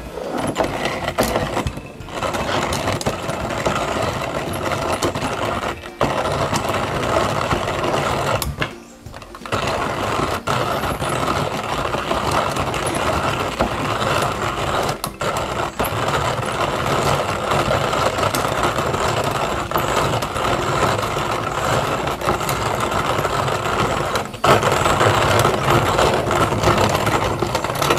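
Coffee grinder grinding roasted coffee beans: a dense, steady grinding noise that drops out briefly a few times, about 2, 6, 9 and 24 seconds in.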